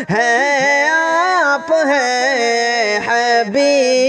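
Voices singing an Urdu naat in long, drawn-out notes that waver and glide in pitch.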